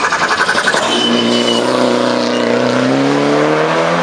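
Mitsubishi Lancer Evolution VII's turbocharged four-cylinder engine driven hard. It pulses rapidly for the first second, then its pitch sags and climbs again as the driver gets back on the throttle.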